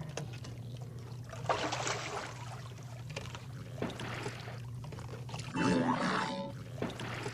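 Water splashing and sloshing in irregular surges over a steady low hum, the loudest surge about six seconds in.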